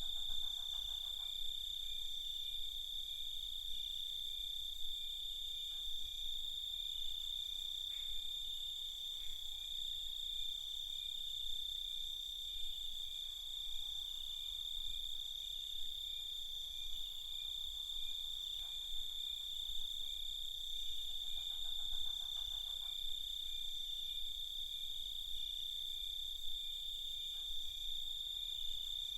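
Night chorus of crickets trilling steadily and continuously, with a few short rasping calls of another insect or frog now and then.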